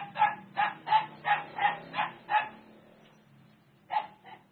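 A dog barking in a rapid run of short, high yaps, about three a second, which stop after a couple of seconds; two more yaps come near the end.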